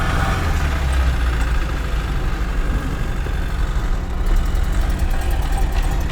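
VAZ 2107 (Zhiguli) engine running as the car drives slowly, heard from inside the cabin as a steady low rumble. The engine is worn, with two of its cylinders having failed, and it runs rough.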